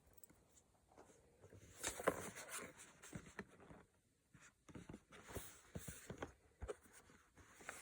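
Hands handling and opening a blind box's packaging: faint scraping and rustling with small sharp clicks, in two flurries about two seconds in and again past the middle.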